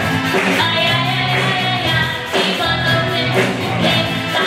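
Live rock band playing: a young girl sings lead over electric guitars, bass guitar, drums and keyboard, with a steady beat.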